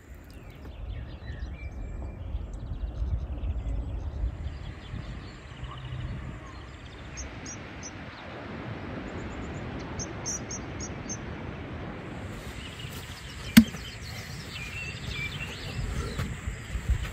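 Outdoor mountain ambience: wind rumbling on the microphone, with small birds chirping in short calls. A single sharp click comes about two-thirds of the way through.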